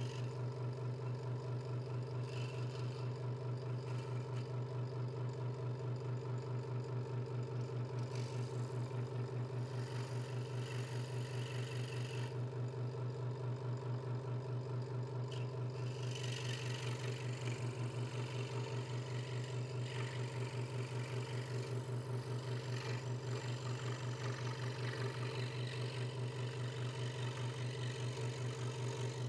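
Hegner Multicut 2S scroll saw running steadily, its blade stroking up and down as it cuts through a thin wooden board. It gives a steady machine hum with a fast, even pulsing, and the higher cutting hiss swells and fades as the wood is fed and turned.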